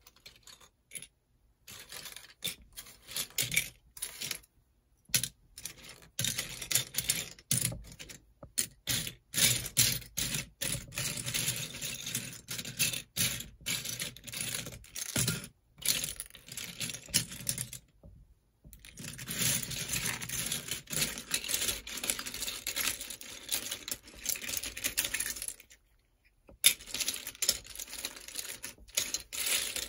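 Plastic LEGO bricks clattering and clicking as they are handled and rummaged through, in long runs of rapid clinks broken by a few short pauses.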